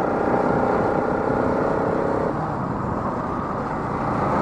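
Motorcycle engine running steadily while riding, with a constant mix of engine tones over road and wind rumble; one of the tones drops out a little past two seconds in.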